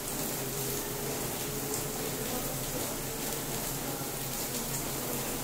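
LG washing machine running mid-cycle: a steady rush of water over a low, even motor hum.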